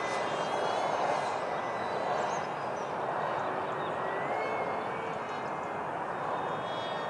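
Electric ducted fan of a radio-controlled Freewing Eurofighter model jet (six-blade WeMoTec Midi EDF) running in flight: a steady rush of air with a thin whine that shifts in pitch, rising about four seconds in.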